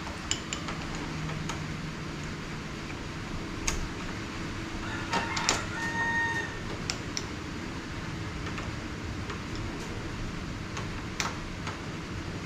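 Scattered clicks and metal taps of a doorknob lockset being taken apart by hand, with a short squeak about six seconds in, over a steady low hum.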